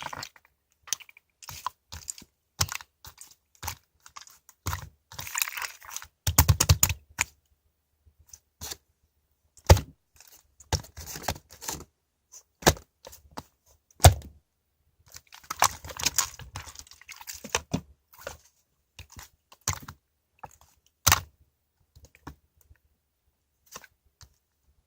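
Slime being squeezed and poked by hand: irregular clicks, crackles and short squelches with brief pauses between them.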